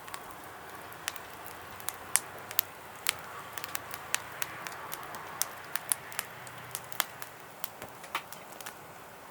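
Wood fire crackling, with irregular sharp pops over a soft steady hiss.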